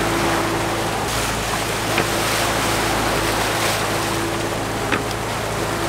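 Sea water rushing and splashing behind the stern of a sailing yacht under way, churned up by a hooked sailfish thrashing at the surface, with a steady hum. Two short sharp ticks sound, about two seconds in and near the end.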